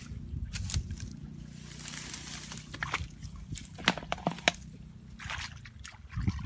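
A long-handled digging tool chopping into wet mud and roots, then hands working in the muddy water of a hole: irregular thuds, knocks and squelches with grass and leaves rustling.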